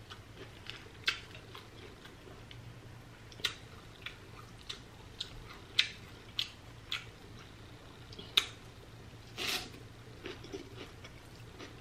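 Close-up eating sounds of pho: scattered wet mouth clicks and smacks while chewing noodles, then a short slurp of noodles about nine and a half seconds in, the loudest sound.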